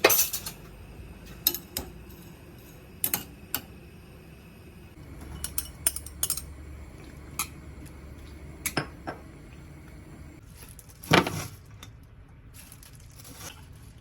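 Dishes and cutlery clinking and knocking while being handled: a scattered series of sharp clinks, the loudest at the start and about eleven seconds in.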